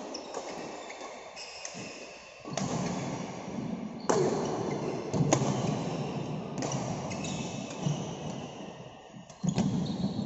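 Badminton play in an echoing hall: several sharp racket strikes on the shuttlecock a second or more apart, with the players' shoes squeaking and landing on the wooden court in between.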